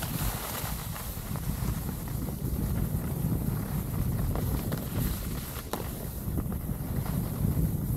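Wind buffeting the microphone during a downhill ski run, a low uneven rumble, with the faint hiss of skis sliding on groomed snow.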